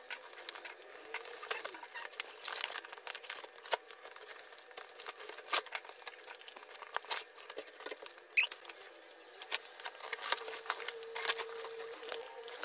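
Clear plastic shrink wrap being pulled and torn off a cardboard box: a dense, irregular crinkling and crackling, with one short high squeak about eight seconds in.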